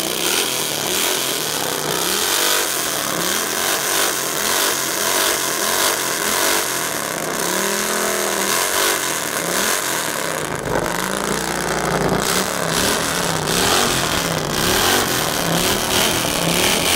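Vehicle engine with a loud exhaust revved again and again in quick blips, with a longer, higher rev about halfway through.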